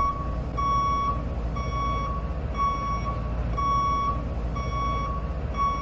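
Vehicle reversing alarm beeping steadily about once a second over a low, steady engine rumble.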